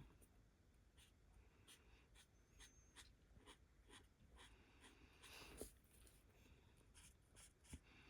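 Faint scratching of alcohol marker tips stroked across stamped cardstock while colouring in flowers: short irregular strokes with a slightly longer one about five and a half seconds in.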